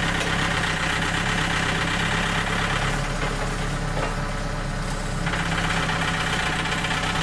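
Small gasoline engine of a Frontier OS27 portable band sawmill running steadily, with a brief change in its sound in the middle.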